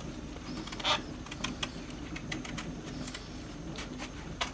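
Kitchen knife peeling a mango, the blade cutting through the skin in short strokes: irregular small clicks and scrapes, with a slightly longer scrape about a second in. A faint steady hum runs underneath.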